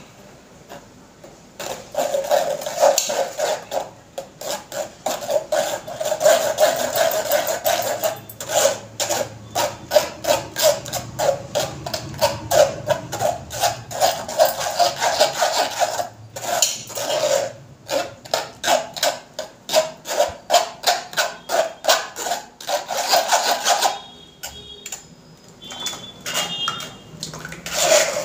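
A spoon scraping and pressing wet ground cucumber pulp against a fine stainless-steel mesh strainer, a rapid rasping rhythm of about two or three strokes a second. It pauses briefly twice past the middle and stops a few seconds before the end.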